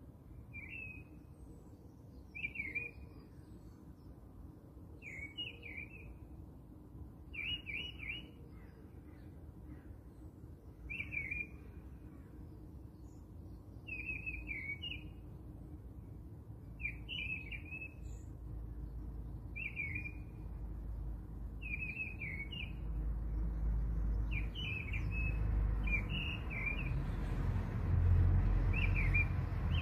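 A songbird repeating the same short call about every two to three seconds, over a low rumble that builds in the last several seconds.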